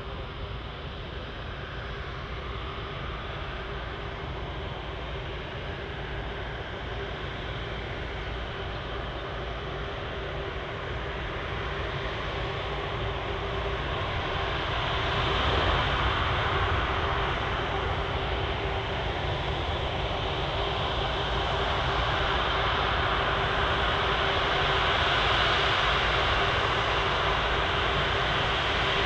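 Airliner engines running, growing steadily louder over several seconds and then holding at a steady level, with a constant hum under the engine noise.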